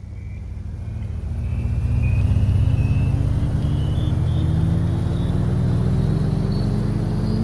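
A loud, low droning hum that fades in and then slowly rises in pitch, with fainter high tones gliding upward with it.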